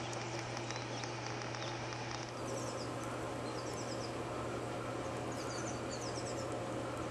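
Outdoor ambience: a steady low hum under a hiss, with clusters of short high chirps coming and going from about two seconds in.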